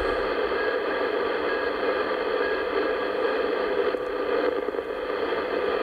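Shortwave receiver's steady hiss and static on the 160-metre band with no station coming through, a faint broken whistle tone in the first half.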